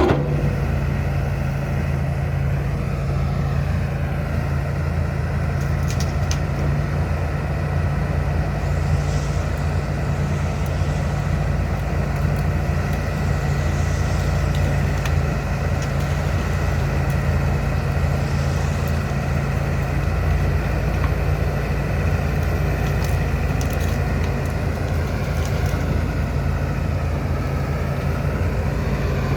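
John Deere 245G LC excavator's diesel engine running steadily under working load, with a higher hydraulic whine that rises and falls a couple of times.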